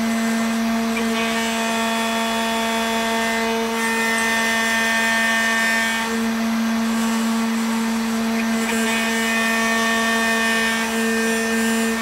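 Homemade CNC carving machine's spindle motor running steadily with a whine while its engraving bit cuts into a block of candle wax; the higher tones of the whine change every few seconds as the tool moves.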